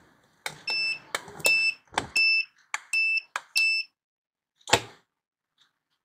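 Video intercom keypad beeping as a PIN is entered: five short high beeps about two-thirds of a second apart, each with the click of a steel push button. About a second after the last beep comes a single sharp clack, as the electronic lock releases.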